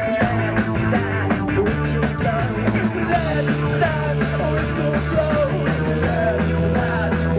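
Indie rock band playing live through a PA: sung lead vocals over electric bass, guitar and drums keeping a steady beat.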